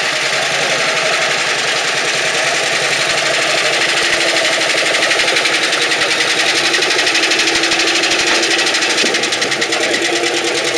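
Vintage tractor engines running as they drive slowly past, with a rapid, even chugging that is loudest about halfway through.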